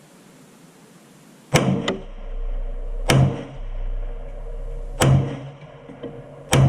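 Four rifle shots from a VSKA AK-47 in 7.62x39 fitted with a sound mitigation device, one about every one and a half to two seconds, starting about one and a half seconds in, with a fainter crack just after the first.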